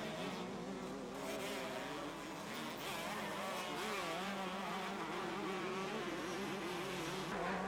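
Two-stroke motocross bike engines buzzing and revving, their pitch wavering up and down over a steady lower engine note.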